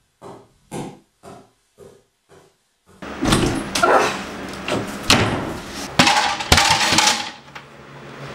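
Six short knocks about half a second apart, each fainter than the last. Then about four seconds of loud crashing and banging, with two sharp bangs near six and six and a half seconds, as an office chair is knocked over.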